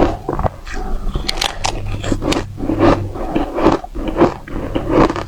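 Close-up bites into frozen matcha ice, with a string of irregular sharp crunches as the hard, dry-textured ice cracks and breaks between the teeth.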